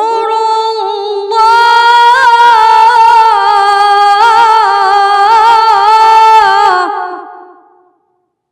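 A man reciting the Quran in melodic tajweed style, holding one long ornamented vowel in a high register, with small wavering turns. It swells louder about a second in, then breaks off near the end and dies away in reverberation.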